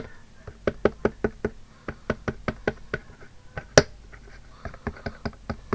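A paint-loaded applicator tapping paint onto a box through punchinella stencil: a quick, fairly even run of light taps, about four a second, with one sharper knock a little before four seconds in.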